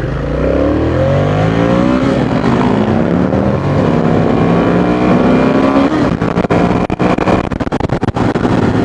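Ducati Monster 620's air-cooled V-twin accelerating hard from a standstill. Its pitch climbs and drops back with each upshift. In the last few seconds wind buffets the microphone.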